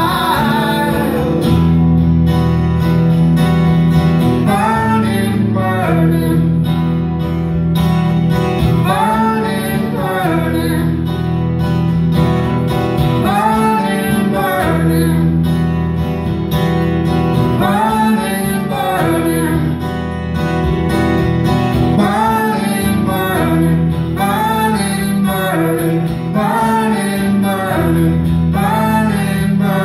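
Live acoustic folk duo: two acoustic guitars played together while a woman sings the melody.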